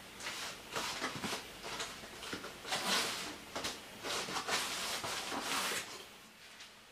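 Hands handling an electric scooter's deck and its fitted white plastic side cover: a run of irregular scraping and rubbing with a few light knocks, dying away about a second before the end.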